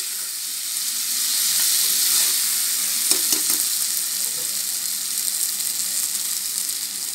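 Drumstick pieces and potatoes sizzling steadily as they fry in oil and masala in a pressure cooker, with a spoon scraping and clicking against the pan a few times about three seconds in as the mixture is stirred.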